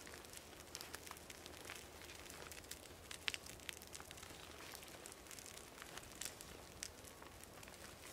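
Small fire of wood shavings and sticks crackling faintly, with scattered small pops and one sharper snap a little past three seconds in.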